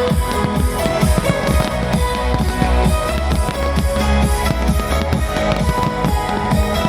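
Loud music with a steady drum beat, bass drum and guitar.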